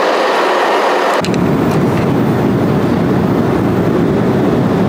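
Loud, steady roar of a jet airliner's cabin in flight, engine and airflow noise. About a second in it changes to a deeper rumble.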